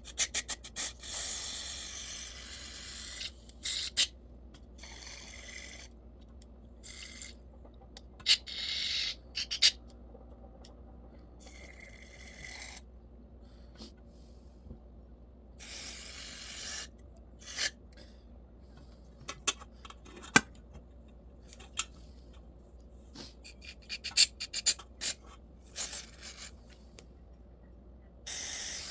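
Several short hisses of aerosol carburetor cleaner sprayed through a small-engine carburetor to flush its jets, the longest about two and a half seconds near the start, between small clicks and taps of the parts being handled.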